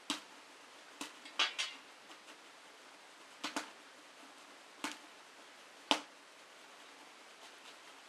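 Popcorn kernels popping one at a time in a metal pot over a bioethanol flame: about eight sharp, irregular pops, the sparse popping of a batch just getting started.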